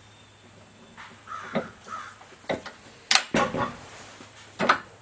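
Melling timing gear being pressed onto the nose of a Willys L-head camshaft in a press. Starting about a second in, a series of harsh, rasping creaks and sharp metallic clunks, the loudest just past the middle and a last one near the end.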